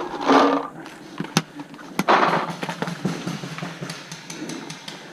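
Paintball marker shots: two sharp pops about half a second apart, with bursts of noise around them.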